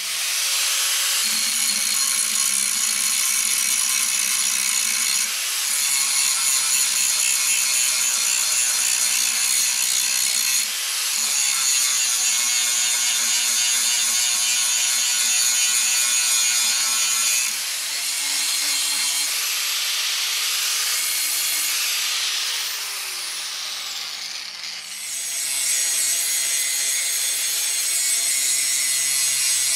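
Angle grinder with an abrasive cut-off disc cutting steel flat bar: a loud, steady, high-pitched whine of disc on metal. The sound shifts a few times and dips briefly late on before running on.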